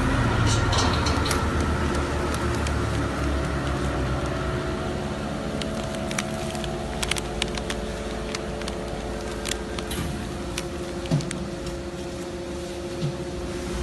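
Chamber vacuum packing machine running with a steady mechanical hum. Scattered clicks and plastic crinkles are heard as the sealed bag is handled.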